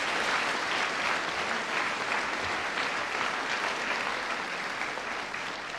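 Theatre audience applauding at the end of a comic Shakespeare monologue, the clapping easing off slightly near the end.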